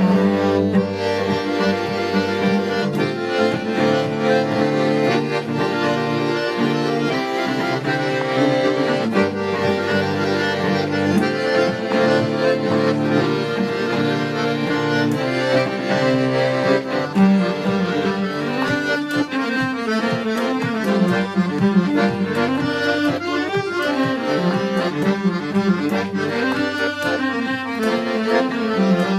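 Accordion playing a lively traditional folk tune, with a low held bass part underneath for the first several seconds.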